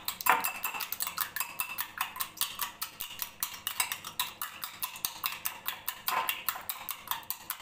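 Fork beating raw eggs in a glass bowl: rapid, regular clicks of metal striking the glass, several a second.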